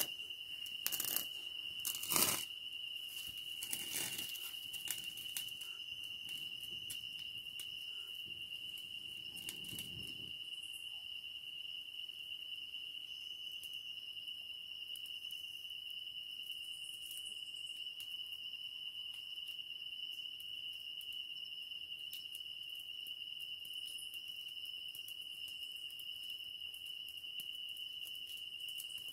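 A steady high-pitched insect drone runs throughout. Over it, dry tinder and kindling crinkle and rustle with a few sharp clicks in the first ten seconds as a small fire is lit by hand. After that come only faint scattered crackles while the flame catches.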